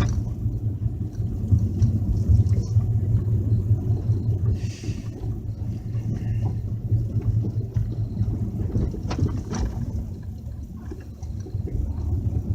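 Steady low rumble of a car's road and engine noise heard from inside the moving car, with a brief hiss about halfway through.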